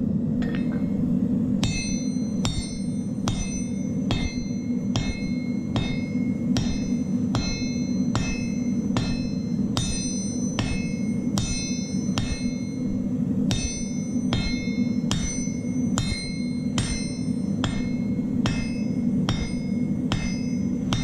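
Hand hammer forging a red-hot steel bar on an anvil: steady blows about two a second, each with a bright metallic ring from the anvil, starting about two seconds in. A steady low roar from the lit forge runs underneath.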